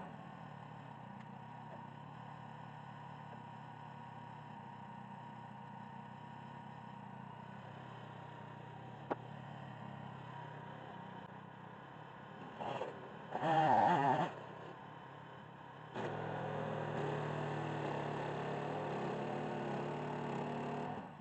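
Small engine of a portable bandsaw sawmill running steadily. A louder wavering, pitch-bending sound breaks in briefly a little past halfway, and the running gets louder a couple of seconds later.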